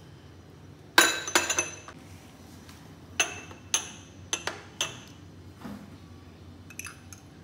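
Steel spoon clinking against a glass mixing bowl and small ceramic spice bowls as spices are spooned onto flour. A quick cluster of loud, ringing clinks comes about a second in, then several single clinks through the middle, and a faint pair near the end.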